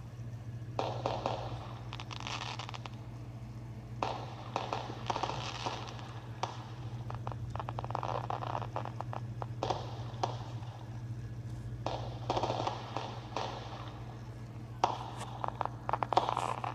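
Fireworks crackling in irregular bursts of rapid pops and crackles, over a steady low hum.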